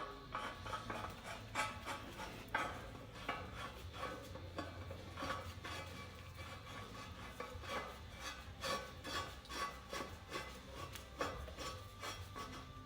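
Hand tools scraping and rubbing on metal in quick irregular strokes, with light clinks, over a low steady hum.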